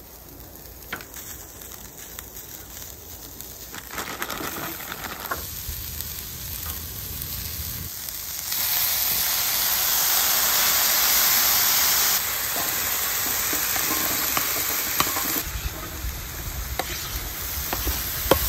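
Ground beef and vegetables sizzling on a hot Blackstone flat-top griddle. The sizzle grows as more food goes on and is much louder from about eight seconds in, with a few sharp metal clicks near the end.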